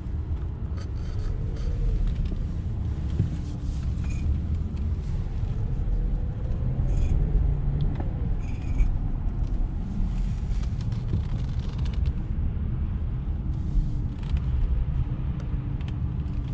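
Car's engine and tyres running at low speed, a steady low rumble heard from inside the cabin.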